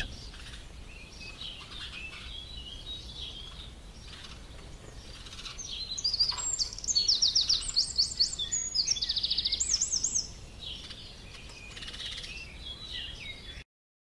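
Birdsong over a faint outdoor background: scattered high chirps, then a louder stretch of rapid runs of repeated high notes lasting about four seconds, and the sound cuts off suddenly near the end.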